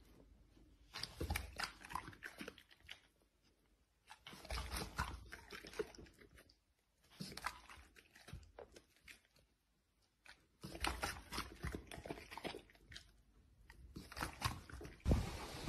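Rottweiler chewing and crunching raw meat, in several short runs of crunching and smacking with quiet pauses between bites.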